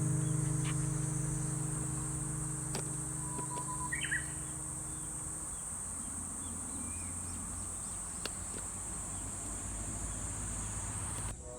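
Insects shrilling in one steady high-pitched drone, with a held music chord fading out in the first half and a short bird chirp about four seconds in. The drone cuts off near the end as new music begins.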